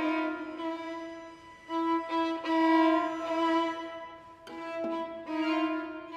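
String quartet of violins, viola and cello playing held bowed notes that swell and fade in slow waves, loudest in the middle.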